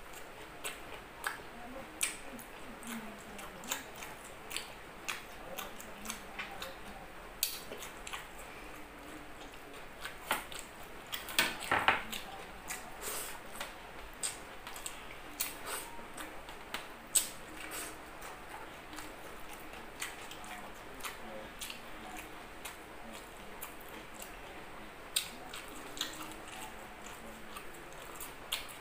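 Close-up chewing and lip smacking of a mouthful of rice, eaten by hand, with many short sharp clicks scattered throughout and a louder cluster of clicks about twelve seconds in.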